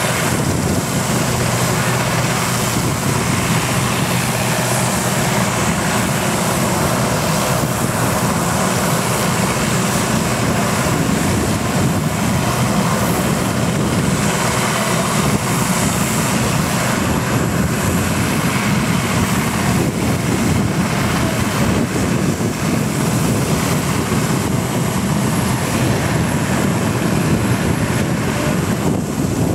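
RAF search-and-rescue helicopter running on the ground with its rotor blades turning before take-off. The turbine engines and rotors make a loud, steady noise with a high whine over it.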